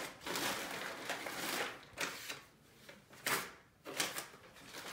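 Paper rustling and crinkling as a folded instruction manual and its packaging are handled, in several irregular bursts with short pauses.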